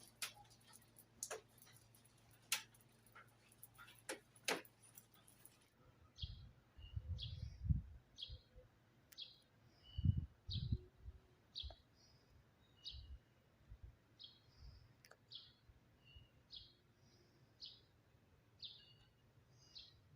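Sharp ticks of water drops falling after rain. After a cut about six seconds in, a small bird chirps short calls over and over, about one and a half a second, with a few low rumbles early in that part.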